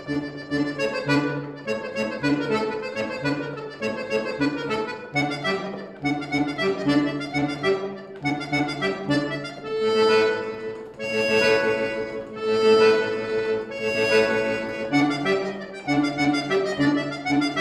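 Scandalli piano accordion played solo: a quick rhythmic passage of bass notes and chords that swells into louder held chords about ten seconds in, then falls back into the rhythmic figure.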